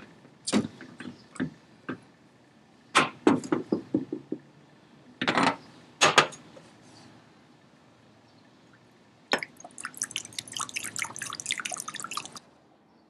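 Screwdriver clicking and knocking against the metal cap of an acetone can as it is pried open, then acetone being poured into a small glass bowl. About nine seconds in come some three seconds of rapid clinking and splashing as lead sinkers are washed in the acetone in the glass bowl.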